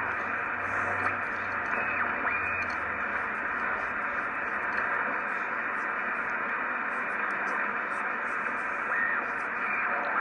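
Audio from a National HRO-500 shortwave receiver on the 17-meter ham band: steady static hiss, held to a narrow voice-width band by the receiver's filter, with a couple of brief faint tones of signals in the noise.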